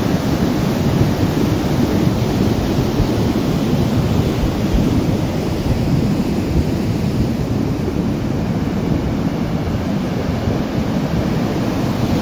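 Flash-flood water rushing down a stony riverbed, a loud, deep, steady rush that doesn't let up.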